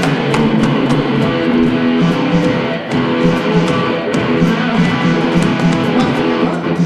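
Live electric guitar playing a rock rhythm, with a steady beat of sharp hits underneath.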